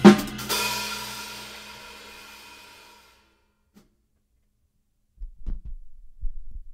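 The last loud hit of a drum-kit passage, kick drum and crash cymbal together. The cymbal rings out and fades over about three seconds, then cuts off. A few soft low thumps come near the end.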